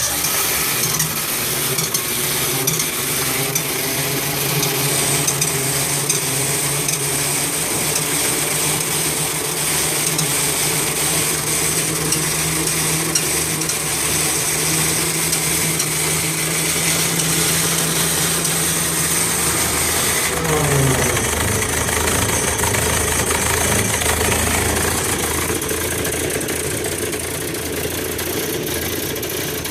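Onan 30EK natural-gas generator starting hard: a long steady crank with the starter engaged. About 20 seconds in the pitch drops and the starter lets go, leaving the engine running on its own. The long crank is the hard-start fault the owner suspects is caused by dirty ignition points or worn spark plugs.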